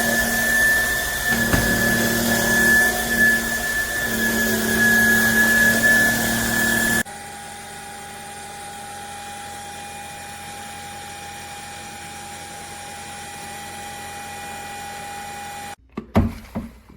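Trucozie cordless stick vacuum cleaner motor running with a steady high whine. About seven seconds in it drops abruptly to a quieter, lower-pitched hum, as on a lower suction setting, then cuts off near the end, followed by a few sharp knocks.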